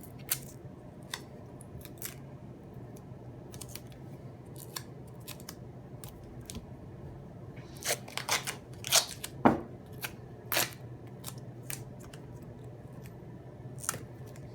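Tape being pulled, cut and pressed onto a rebuilt battery's cell pack: scattered small clicks and crinkles, then a cluster of louder tearing and snipping strokes about eight to eleven seconds in, over a steady low hum.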